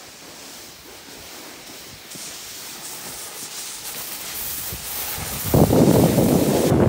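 Snowboard sliding over packed snow: a steady scraping hiss that grows louder, then a much louder rough rush of noise for the last second and a half.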